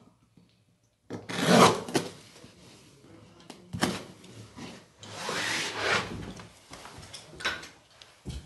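Carpet being pulled and folded back by hand, its backing rubbing and scraping across the underlay in several rough strokes that start about a second in, the loudest soon after; a short knock near the end.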